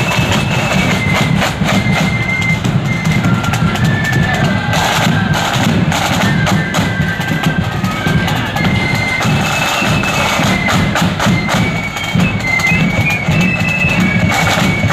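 Marching flute band playing a tune: flutes carry the high melody over rapid snare drumming and a steady bass drum beat.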